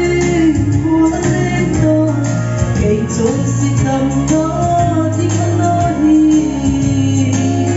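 A woman singing a solo into a microphone over instrumental accompaniment, her melody moving in held notes over a steady low bass line.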